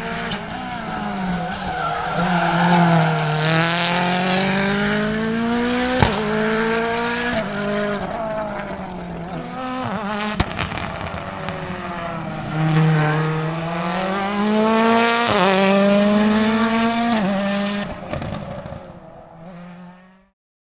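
Rally car engine revving hard, its pitch dipping and climbing again in two long runs, with a few sharp cracks along the way; it fades and cuts off near the end.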